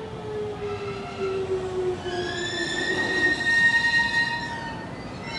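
JR Central 373 series electric train pulling into a platform. A whine falls in pitch as it slows, then a high, steady squeal sets in as it brakes, from about two seconds in.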